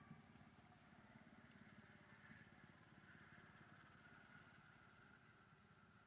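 Near silence with a faint, steady motor vehicle engine hum.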